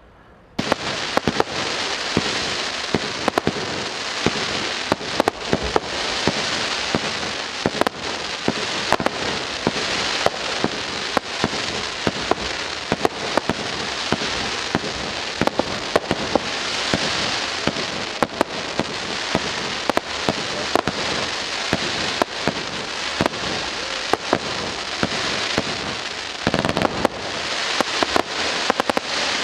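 Fireworks display: a continuous dense crackle studded with many sharp bangs from rockets and aerial shells bursting, starting suddenly about half a second in.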